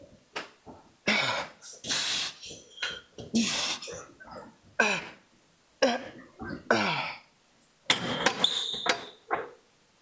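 A man grunting and blowing out hard breaths as he strains through the last reps of a lying hamstring curl. There are short forceful puffs and several groans that fall in pitch: straining at the end of a hard set.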